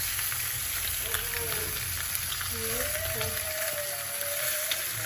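Food frying in a pan, a steady sizzle with small crackles.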